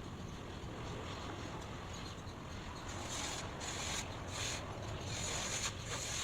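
Steady ambient white noise: a low rumble like wind on the microphone, with a high hiss that begins about halfway through and comes and goes several times.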